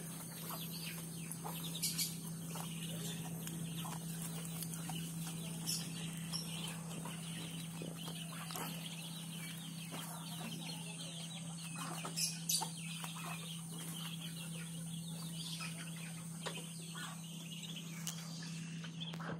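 Chickens clucking faintly and on and off, over a steady low hum.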